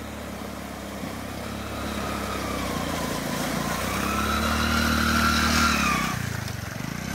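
Small motorcycle engine pulling through a shallow river ford, over the rush of river water. The engine note rises and grows louder as the bike comes on, then drops off as the throttle is eased about six seconds in.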